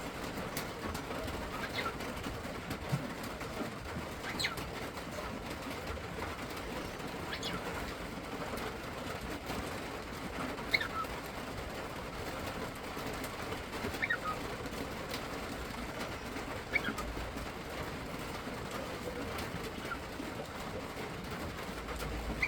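Cockatiel giving short, high calls that fall steeply in pitch, one every two to three seconds.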